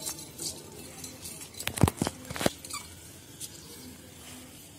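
Soaked raw rice being tipped and worked in a wire-mesh strainer to drain it: soft patter and rustle of wet grains, with a few sharp clicks about two seconds in.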